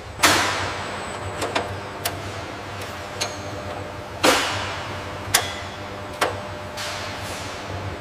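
Sharp metal clanks and taps of assembly work, about nine in all, the loudest just after the start and about four seconds in, each ringing out with echo over a low steady hum.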